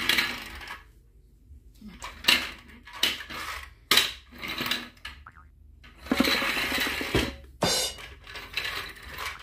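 Plastic parts of a toy Thomas engine clicking and knocking as they are fitted together and set down on a tile floor, the loudest knocks about two and four seconds in. From about six seconds in there is a rapid rattling whir, fitting the toy's battery motor and gears running as it drives itself across the floor.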